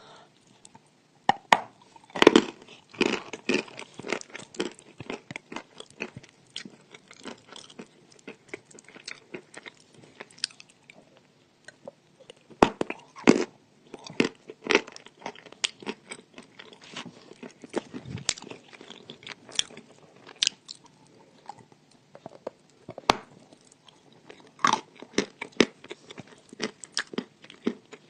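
Close-miked biting and crunching of chalk, loud snaps of bites followed by runs of gritty chewing crunches. The biggest bites come about two seconds in, near halfway and near the end.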